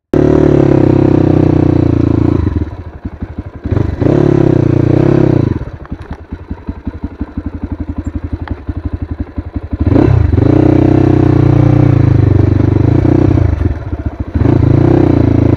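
Crossfire HJ250 dirt bike's engine running, helmet-camera view. It pulls strongly under throttle, drops back several times to low revs where the separate firing pulses can be heard, longest for about four seconds in the middle, then picks up again.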